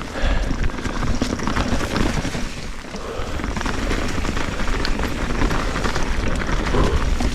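Wind rushing over a GoPro microphone during a fast mountain-bike descent, a steady low rumbling buffet. Small clicks and knocks run through it as the bike rattles over rough trail.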